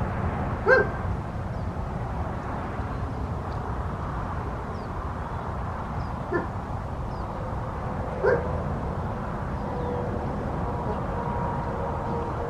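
A dog barking three single times, seconds apart, over a steady low rumble; a steady hum comes in near the end.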